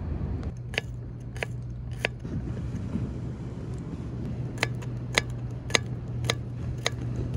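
Knife cutting food on a makeshift cutting board: sharp taps of the blade striking the board, a short run of three, then after a pause a steady run of about six, roughly two a second.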